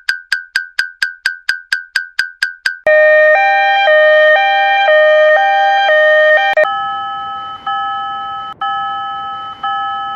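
Japanese railroad crossing warning signals in turn. First a rapid single-pitch ding, about four strokes a second, for the first three seconds. Then a two-tone electronic alarm alternating about twice a second, and near the end a slower alternating tone over a steady hiss.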